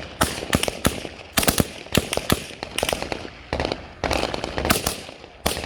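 Celebratory gunfire: many sharp shots in quick, irregular clusters, several a second, each with a short echo.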